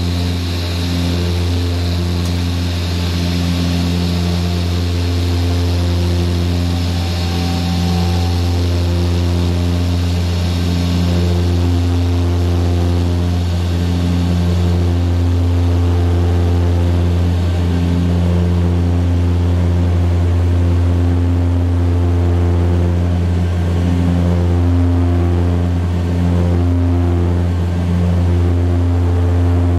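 Embraer EMB-120 Brasilia twin turboprop heard from inside the cabin at takeoff power during the climb-out: a steady, deep propeller drone whose overtones slowly swell and fade in a beating pulse every few seconds, with a higher hiss that eases off about halfway through.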